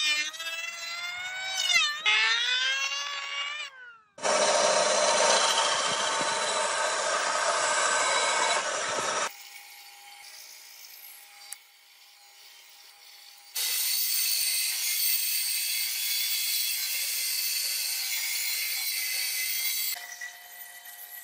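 Woodworking power tools on hardwood. For the first few seconds there are wavering whines that rise and fall. Then a loud, dense cutting noise runs for about five seconds and stops abruptly. A bandsaw hums steadily on its own, then cuts through the wood for about six seconds with a loud hiss, and runs free again near the end.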